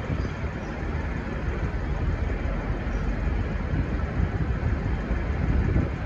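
A passenger train's carriages rolling away out of the station, a steady low rumble mixed with wind buffeting the microphone.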